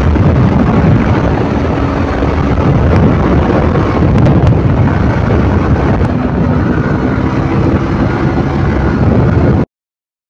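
Yamaha motorcycle cruising in sixth gear at about 100 km/h: a loud, steady mix of wind rushing over the microphone and engine drone. It cuts off abruptly to silence near the end.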